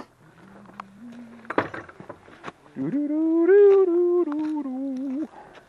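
A person humming a short wordless tune, quiet and low at first, then louder and higher from about three seconds in, moving in steps between held notes before stopping abruptly.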